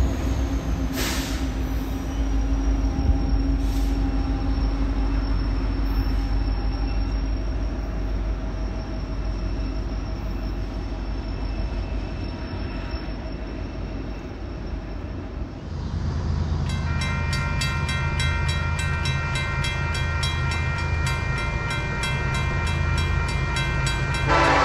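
Coal train rolling past, a low rumble of cars and wheels with a faint high wheel squeal sliding slowly down in pitch. About sixteen seconds in it gives way to a diesel locomotive's multi-tone horn sounding steadily over engine rumble as a BNSF coal train approaches.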